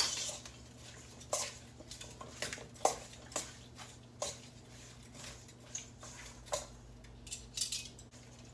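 A utensil clinking and knocking against a mixing bowl in irregular taps as chopped peppers and raw chicken are tossed through seasoning and oil.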